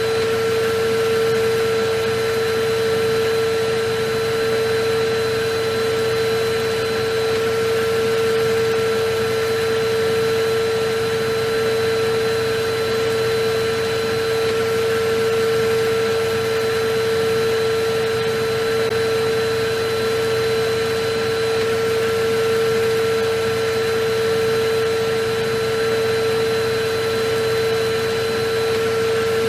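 Vacuum cleaner running steadily: a constant motor whine over an even rush of air, with no change in pitch or level.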